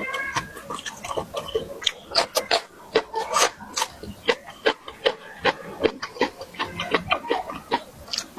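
Close-miked chewing with wet lip-smacking and mouth clicks, in quick irregular bursts.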